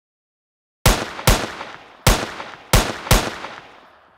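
Five gunshots, sharp and loud, each trailing off in a fading echo, in an uneven rhythm: two close together about a second in, then three more over the next two seconds.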